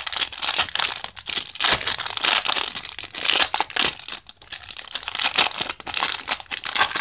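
Foil wrapper of a Yu-Gi-Oh booster pack crinkling and tearing as it is pulled open by hand, a dense run of crackles with sharper rips among them.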